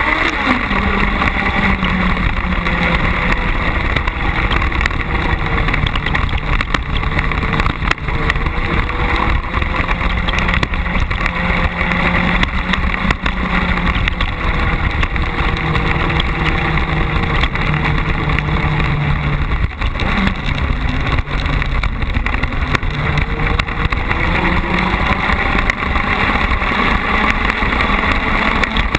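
Carcross buggy's engine running hard under racing load, heard through a camera mounted on the car, its pitch rising and falling with the throttle. Short knocks and rattles from the rough dirt track run through it.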